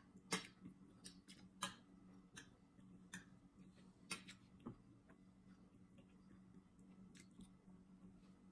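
Metal spoon and fork clinking and scraping against a ceramic plate while rice and fish are eaten, in sharp, irregular clicks that are loudest in the first half. A low steady hum sits underneath.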